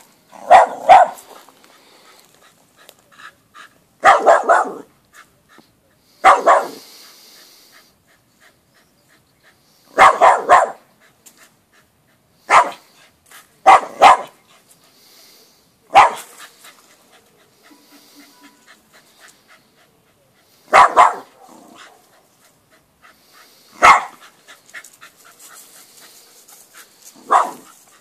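West Highland White Terrier barking at a doll in short bursts of one to three sharp barks, with pauses of two to five seconds between bursts.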